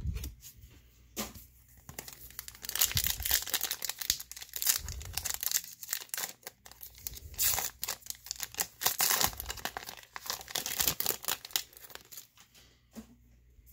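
Hands tearing open a baseball card pack wrapper and crinkling it: a dense run of ripping and crackling that dies away near the end.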